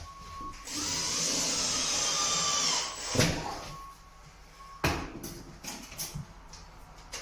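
Power drill-driver running for about two seconds, driving a screw through plasterboard into a timber batten, followed by a few sharp knocks.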